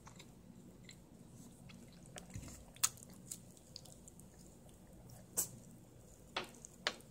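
A cat eating small pieces of turkey meat off a wooden table: quiet chewing with a few sharp, short clicks of its mouth on the food.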